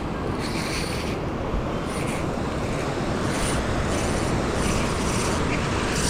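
Wind buffeting the microphone over ocean surf washing on the shore, a steady rushing noise.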